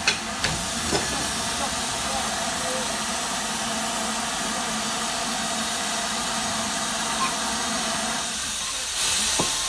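Steady steam hiss from a sound-fitted model steam locomotive standing at the platform, with a few light clicks in the first second. Near the end the hiss gets louder and brighter.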